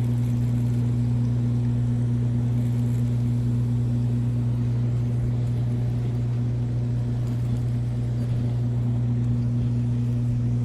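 Steady low hum of the dam's running hydroelectric turbines, two constant deep tones over a faint rush, unchanging in level.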